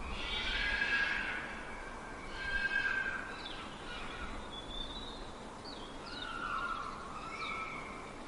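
Fox giving a run of high-pitched calls: several longer, wavering cries with short quick chirps in between.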